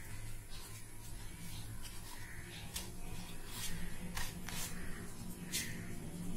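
Soft scattered crackles and rustles of dry breadcrumbs as a hand presses and rolls a batter-coated vegetable ball through them on a plate, over a steady low hum.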